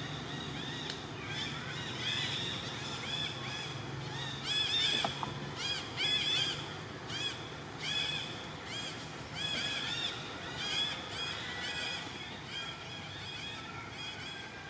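Birds chattering outdoors: quick trains of short chirping notes, many overlapping, loudest about five to six seconds in, over a steady high hiss.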